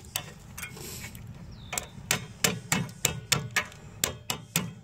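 Metal-on-metal tapping on worn rear disc brake pads to free them from the caliper bracket: a few knocks, then a quick run of about four taps a second from about two seconds in. The pads are held fast by rust and corrosion.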